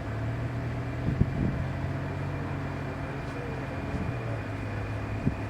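Jet engines of the presidential jet at takeoff power on its runway roll, heard from a distance as a steady low hum with a faint high whine over a rushing haze. The hum rises a little in pitch and then settles back near the end. It is fairly quiet for a large jet.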